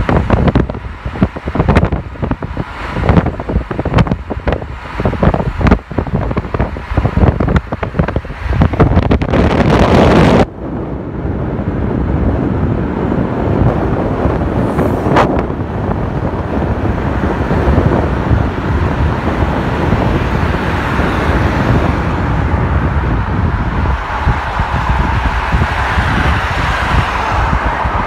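Road noise of a car driving, with wind buffeting the microphone in rapid gusts. The buffeting stops abruptly about ten seconds in, leaving a steady rush of road and traffic noise.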